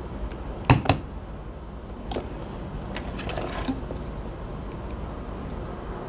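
Small hard parts clicking and clinking: two sharp clicks about a second in, another near two seconds, and a short clatter of clicks around three and a half seconds.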